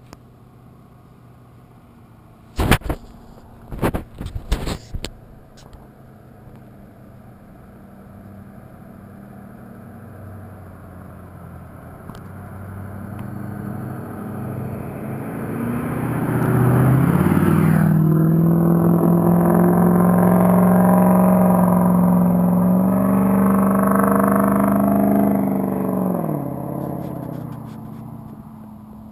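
Straight-piped 2006 Ford 6.0L Power Stroke V8 turbo-diesel, with the catalytic converter and muffler removed, driving by. It swells as it approaches, runs loud and rises in pitch as it passes under acceleration, then fades away. A few sharp clicks come about three to five seconds in, before the truck is heard.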